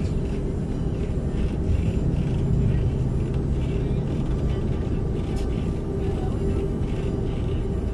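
Steady low drone of an airliner's idling jet engines, heard inside the cabin while the plane taxis.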